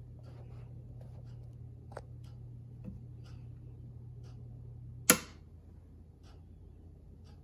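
Metzner Starlight C-5B turntable motor humming steadily, then a loud click about five seconds in as the switch is flipped, and the hum stops. A loud clock ticks in the background, about three ticks a second.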